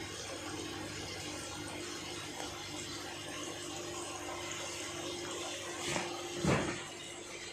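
Steady running and bubbling water from aquarium filters and aeration, with a steady low hum. Two brief louder noises stand out about six seconds in.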